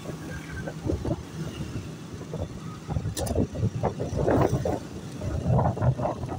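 Small motorcycle's engine running while riding, with wind buffeting the microphone and passing street traffic.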